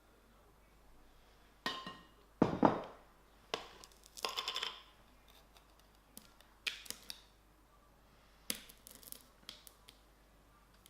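Kitchen bowl and utensils knocking and scraping as weighed caster sugar is tipped into a mixing bowl. There are several separate knocks and scrapes, the loudest about two and a half seconds in.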